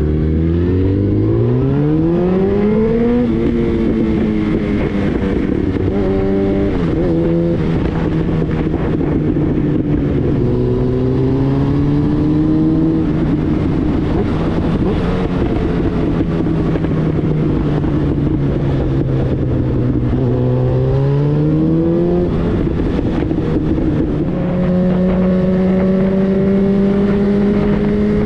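Yamaha FZ1-N's 998 cc inline-four running through a GR Moto titanium slip-on exhaust with the baffle removed, under way. Engine pitch climbs in the first few seconds and drops at an upshift, holds fairly steady while cruising, rises again a little after twenty seconds, then settles into a slow climb near the end.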